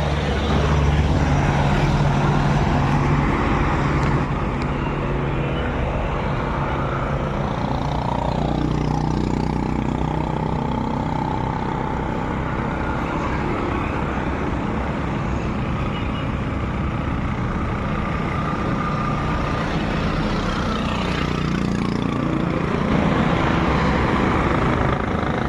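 A motor vehicle's engine running steadily under a broad rushing noise, its low hum shifting in pitch now and then.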